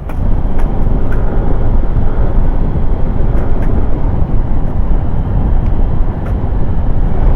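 Steady wind rush and road noise while riding a Yamaha NMAX scooter at speed.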